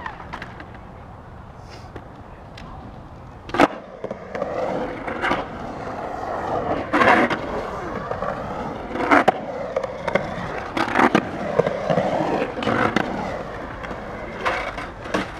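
Skateboard wheels rolling over the concrete of a skatepark bowl, a rushing sound that swells and fades as the skater carves up and down the walls. It starts with a sharp clack about three and a half seconds in as the board drops in, and several more clacks come through the run.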